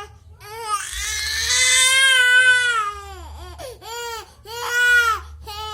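Infant crying: one long wail starting about a second in, then three shorter cries.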